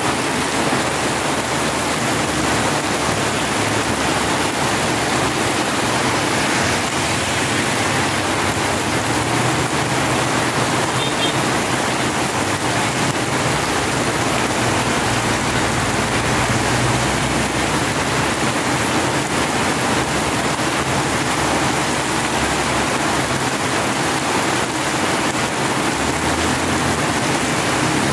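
Heavy tropical rain pouring onto a paved street, a steady, even hiss of water, with motor traffic driving through the wet road underneath it.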